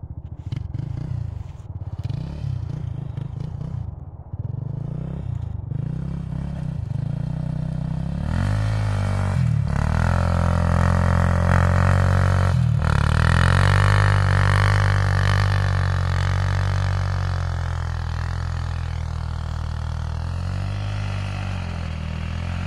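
Honda TRX400EX quad's single-cylinder engine, bored out to 426 with a stage 2 chromoly cam and White Brothers slip-on exhaust, revving up and down as it drifts. About eight seconds in it gets louder and is held at high revs, with two brief drops in revs, easing off slightly toward the end.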